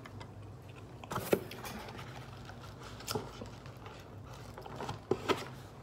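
A cardboard frozen-meal box picked up and handled, giving a few light scrapes and taps: about a second in, around three seconds, and twice just past five seconds. A low steady hum runs underneath.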